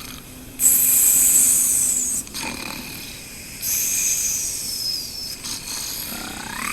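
Cartoon snoring: two long hissing breaths, the second with a whistle that falls in pitch.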